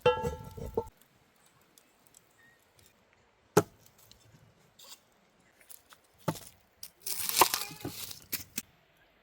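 Handling noises: a short pitched sound at the start, two separate sharp knocks a few seconds apart, then a tearing, rustling sound lasting about a second and a half near the end.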